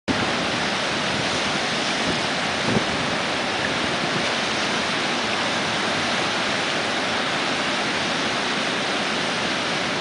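Steady wash of ocean surf breaking on the shore.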